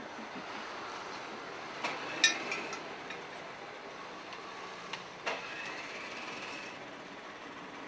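Steady workshop room noise, a low even hiss, with a few sharp light clicks and knocks, the loudest about two seconds in with a short ring after it.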